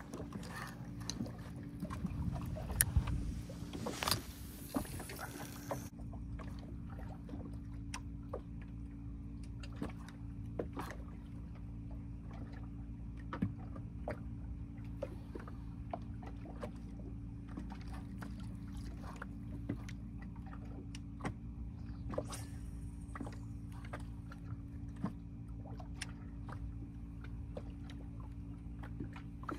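Steady low hum of a boat motor, with scattered light clicks and knocks on the boat. A rushing noise sits over it for the first several seconds, then stops.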